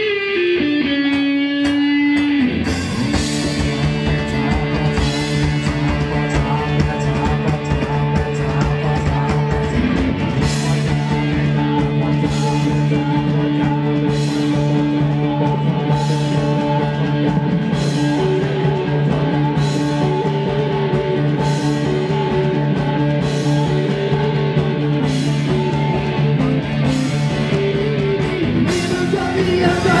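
Rock music with electric guitar: after a short sparser opening, the full band comes in about two seconds in and plays long held chords.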